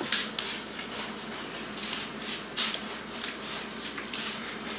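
Pork chop being pressed and turned in a dish of dry breadcrumbs: irregular scratchy, crunchy rustles with light scrapes against the dish.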